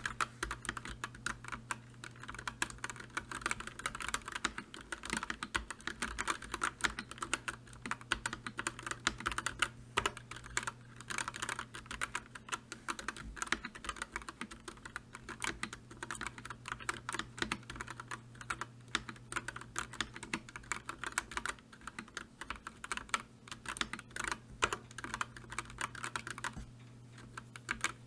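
Computer keyboard being typed on continuously: a rapid, irregular stream of key clicks, with a short pause near the end.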